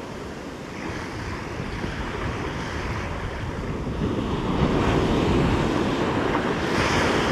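Ocean surf breaking and washing up the beach, swelling louder over the last few seconds as a wave runs in.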